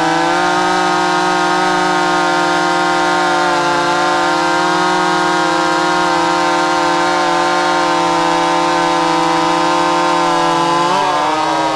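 Stihl 026 (MS260) two-stroke chainsaw running at full throttle under load while cutting through a log, a steady high-pitched drone with small dips in pitch as the chain bites. Near the end the pitch climbs sharply as the saw comes free of the cut.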